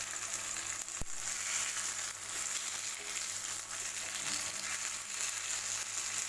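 Marinated fish slices shallow-frying in a little oil in a non-stick pan, sizzling steadily. A single sharp click about a second in, as metal tongs touch the pan.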